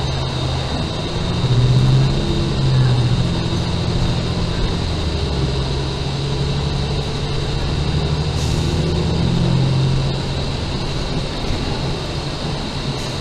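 City transit bus engine running as the bus drives along, heard from inside the passenger cabin: a low drone that swells about two seconds in and again near the end, with a steady high whine over it.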